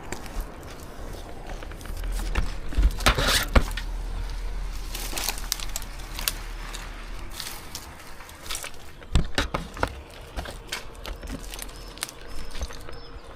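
An arborist moving and handling rope in a Scots pine: irregular rustling and crackling of branches and needles, with scattered sharp clicks.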